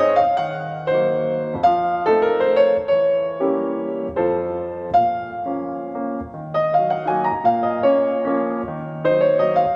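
Piano music: a melody of struck notes over lower chords.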